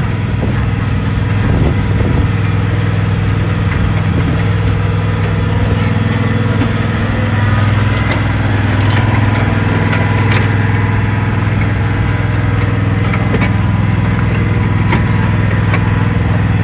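Small engine of a trackless tourist road train running steadily as it tows its open carriages, a low, even hum heard from a trailing carriage, with a few light clicks and rattles.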